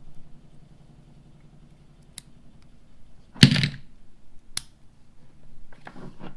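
Hand tools being handled: light clicks and one loud, sharp clack about three and a half seconds in, followed by a soft rustle near the end.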